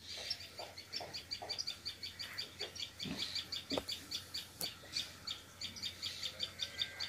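A bird calling with a fast, even series of high chirps, about six a second, and a few short low grunts from pigs in their pens.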